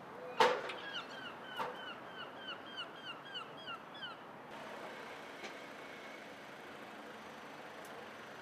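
A sharp knock, then a quick run of short, repeated animal calls, about three or four a second, each dipping in pitch, stopping after about three seconds.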